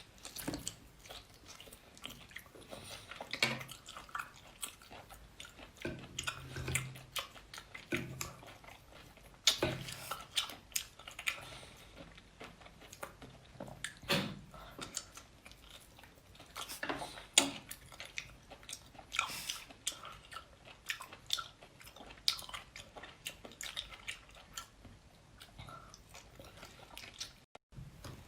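A person chewing and biting seafood close to the microphone, with irregular sharp clicks and wet smacks.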